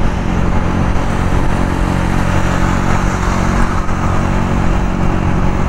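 Honda CG 125's single-cylinder four-stroke engine running steadily at an even cruising speed, under a constant rush of wind and road noise.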